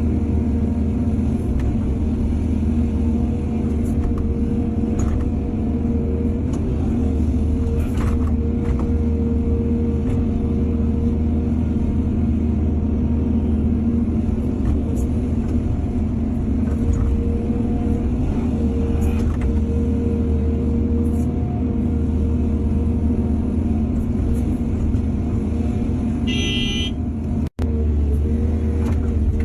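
Excavator's diesel engine running steadily with a low rumble, with occasional knocks. A short high-pitched tone sounds about 27 seconds in.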